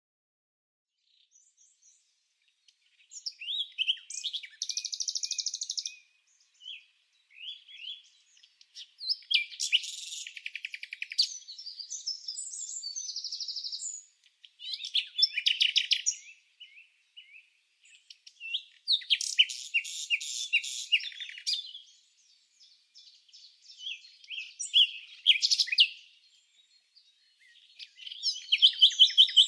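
A small songbird singing bouts of rapid high chirps and trills, each a few seconds long, with short pauses between them. The first few seconds are near silent before the song begins.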